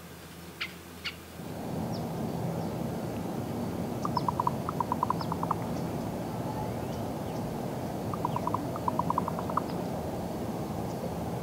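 Common raven giving its knocking call: two runs of about ten quick, hollow notes, a few seconds apart, over a steady low background rumble. Two sharp clicks come just before, with faint high chirps from small birds scattered through.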